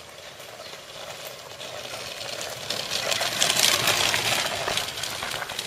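Handcycle rolling past close by on a gravel track: tyres crunching on gravel with a fast clattering from the drive. It grows louder to a peak about three and a half seconds in, then fades a little.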